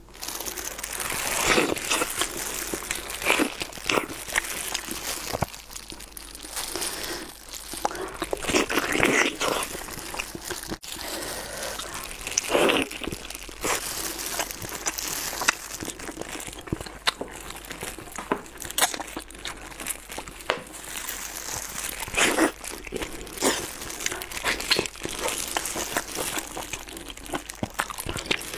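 Disposable plastic gloves crinkling in irregular bursts as hands pull apart braised pork trotters, with sticky tearing of skin and meat, and biting and chewing.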